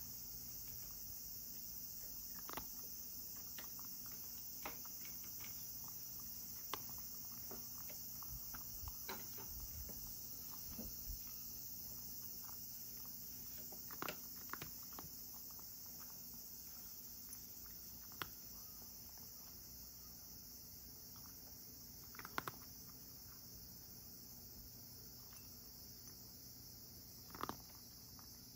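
A cat eating dry kibble from a ceramic bowl: a dozen or so scattered short, sharp crunches and clicks over a steady high hiss.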